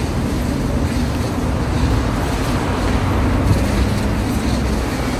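Steady mechanical noise with a low hum, even in level, from the car wash bay's running equipment.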